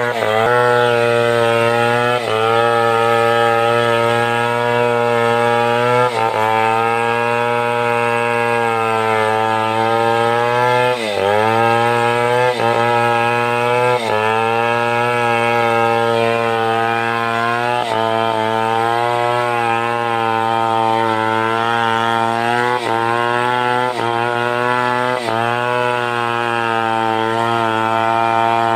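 Stihl 070, a big two-stroke chainsaw, running at high speed while ripping wood. Its pitch sags briefly every few seconds as the chain bites into the cut and loads the engine, then climbs back, with one deeper bog about eleven seconds in.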